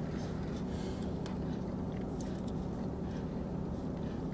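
Steady low hum of a car running, heard inside its cabin, with a few faint light clicks.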